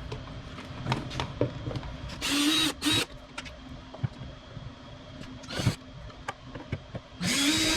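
Power drill-driver spinning out the Phillips screws that hold a fuel filler neck, in four short whirring bursts. Each burst rises briefly in pitch as the motor spins up, and the last is the longest. Small clicks and knocks come in between.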